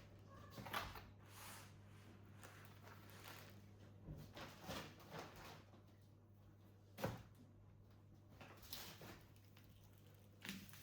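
Faint scattered knocks and rustles of things being handled, the sharpest a single knock about seven seconds in, over a low steady hum.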